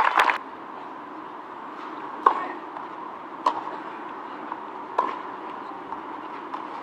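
Crowd applause cutting off just after the start, then three sharp single knocks about a second and a half apart, typical of a tennis player bouncing the ball on the court before serving, over a faint steady hum.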